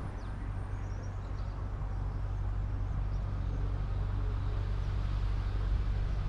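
Narrowboat engine running steadily while the boat cruises, a low even drone, with faint bird chirps in the first second or so.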